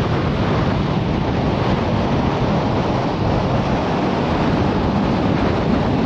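Strong gusting wind buffeting the microphone: a loud, steady rumbling rush with no break.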